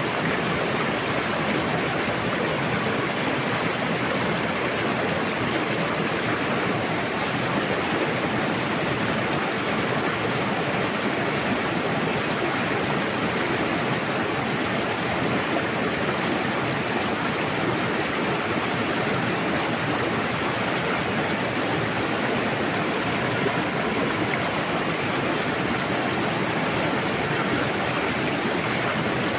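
Forest river rushing: a steady, even wash of flowing water with no let-up.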